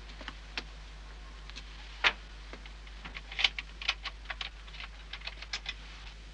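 Irregular sharp clicks and light taps, a few a second, with one louder click about two seconds in and a cluster around three and a half to four seconds in, over a low steady hum.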